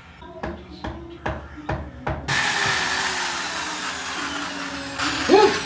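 A series of light taps, then about two seconds in a power drill with a masonry bit starts drilling into the concrete wall and runs steadily, a loud grinding whine.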